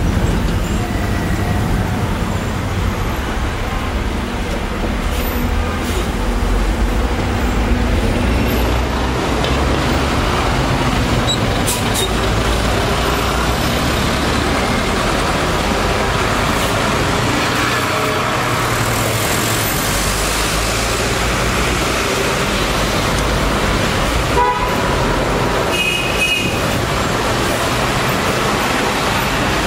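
City road traffic: a steady low rumble of vehicle engines and tyres, with a few short car horn toots, the clearest a little before the end.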